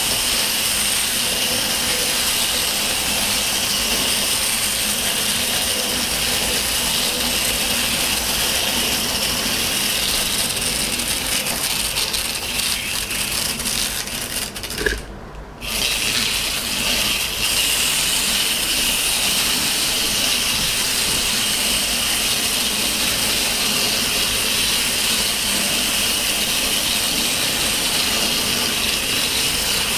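Several wind-up Capsule Plarail toy trains running round a small plastic track: a steady whir of their clockwork gearboxes with the rattle of plastic wheels on the track, briefly dropping away about halfway through.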